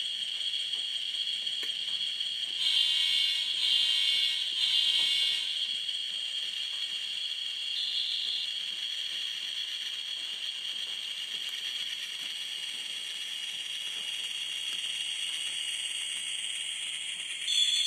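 Model NSWGR 442 class diesel locomotive's DCC sound decoder playing through its small onboard speaker: a steady, tinny engine sound, with three horn blasts about three to five seconds in, a short toot near eight seconds and the horn again near the end.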